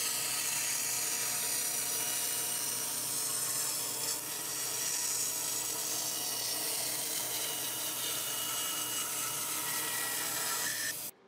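Bandsaw running and cutting through a board of Morado (Bolivian rosewood): a steady hum with a high hiss from the blade in the hardwood, cutting off suddenly near the end.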